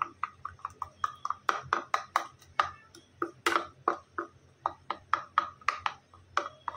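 Steel spoon stirring milk and spice powder in a small bowl, clinking and tapping against the bowl several times a second in an uneven rhythm as lumps of masala are broken up.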